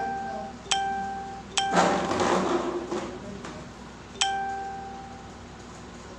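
A bell-like chime struck three times at the same pitch, about 0.7 s, 1.6 s and 4 s in, each note ringing and fading. A hissing swell rises after the second strike and dies away over about a second.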